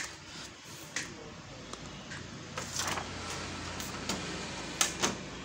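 Quiet room noise with a low hum and a few soft clicks and knocks.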